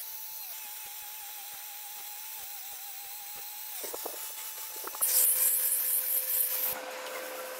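Angle grinder with a sanding disc running, its motor giving a steady, slightly wavering whine. About five seconds in the disc bites into the wooden knife-handle blank with a loud hiss of abrasive on wood for under two seconds, then the grinder spins free again at a lower whine.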